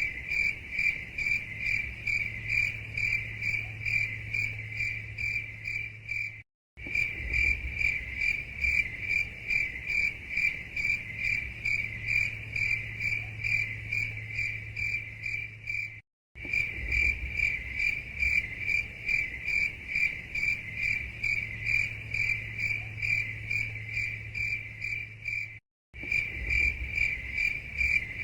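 Crickets chirping in a steady, rapid, regular rhythm of high-pitched pulses. The sound cuts out completely for a split second three times, about ten seconds apart.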